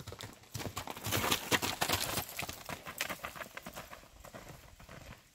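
Chestnut horse's hooves striking gravel at speed under a rider: a fast run of hoofbeats, loudest about a second in and fading toward the end.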